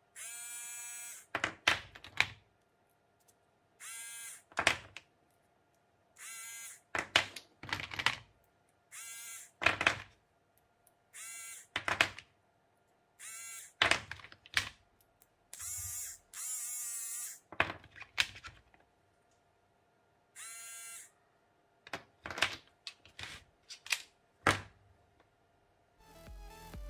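A repeating machine cycle: a short electric buzz of about a second, then two or three sharp clicks, about every two to three seconds.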